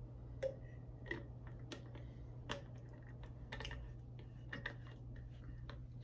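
Faint, irregular small clicks, about one or two a second, over a steady low hum.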